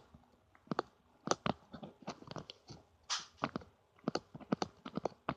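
Slime being poked and squished with the fingers: irregular sticky clicks and pops, with a short hissing squelch about three seconds in.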